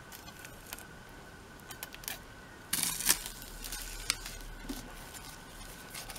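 Plastic shrink-wrap film being slit with a utility knife and pulled off an album: a few light clicks, then a louder crinkling rustle about three seconds in.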